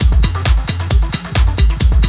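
Electronic background music with a steady beat, about two drum hits a second.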